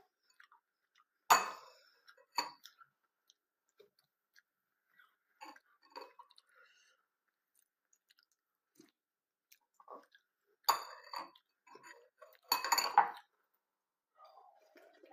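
Cornflakes being eaten: a spoon clinking against the bowl and crunchy chewing. Sharp clinks come about a second in and again a second later, with a busier cluster of clinks and crunching near the end.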